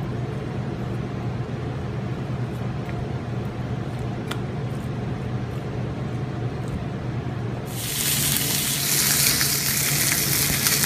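Ribeye steak searing on a hot ridged grill pan: a loud, even sizzle that starts abruptly near the end. Before it there is only a steady low hum.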